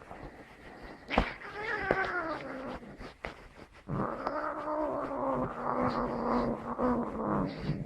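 Domestic cat yowling twice: a shorter call that falls in pitch, then a long drawn-out yowl. A sharp click sounds about a second in.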